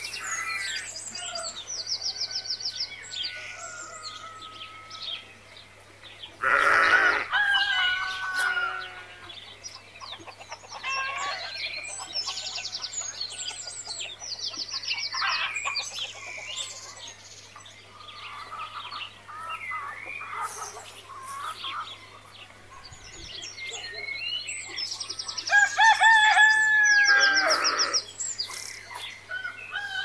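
Farmyard ambience of chickens and small birds calling throughout, with a rooster crowing loudly about six seconds in and again near the end.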